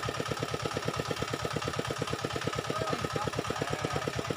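A small engine running steadily at idle, a rapid even thudding of about nine beats a second under a steady high whine.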